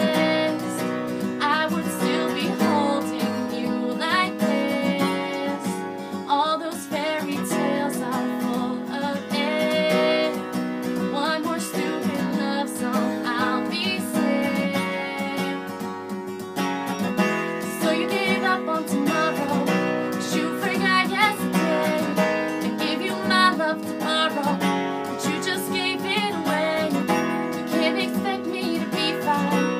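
Acoustic guitar strummed steadily, playing the song's accompaniment.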